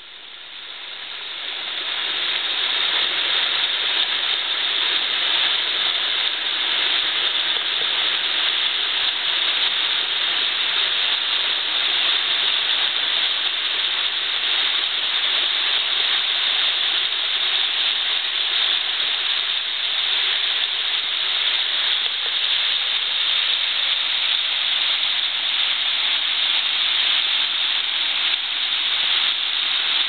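Water of a small waterfall rushing over bedrock in a steady hiss, growing louder over the first couple of seconds and then holding even.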